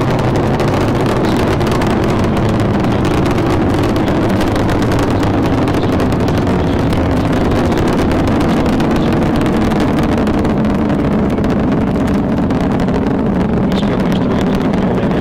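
Space Shuttle Discovery climbing after liftoff: its two solid rocket boosters and three main engines make a loud, steady, deep rumble with a crackling hiss on top.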